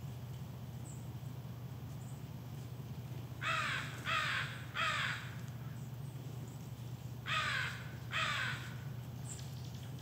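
A crow cawing off-screen: three harsh caws in quick succession, a short pause, then two more, over a steady low hum.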